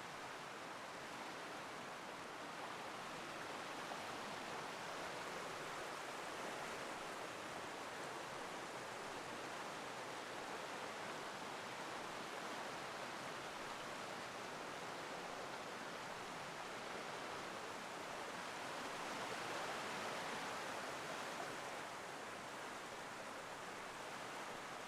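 Forest stream rushing steadily over small waterfalls and cascades, a little louder about twenty seconds in.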